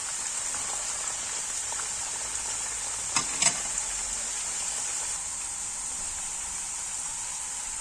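Salted unripe plantain slices sizzling in hot frying oil: a steady, high hiss. A couple of short knocks come about three seconds in.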